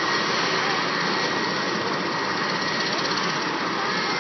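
Helicopter running on the ground before takeoff: a steady engine and rotor noise with a thin, steady high whine over it.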